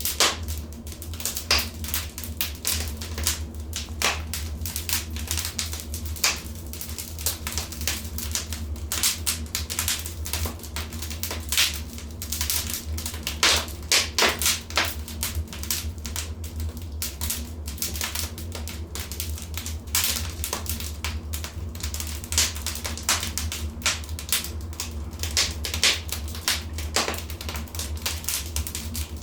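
Wood fire in a fireplace crackling and popping: a dense, irregular patter of sharp pops and snaps over a steady low rumble of the flames.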